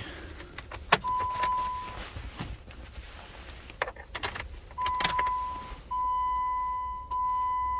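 Electronic beeps during transponder-key programming of a 2016 Jeep Wrangler. A few sharp clicks of keys and the ignition come first. Then come long one-pitch beeps of about a second each, almost continuous from about six seconds in.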